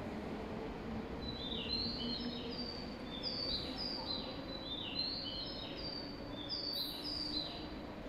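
Birds chirping: a quick run of short, high chirps, each falling in pitch, over a faint low hum and background noise of a railway platform as a train pulls away.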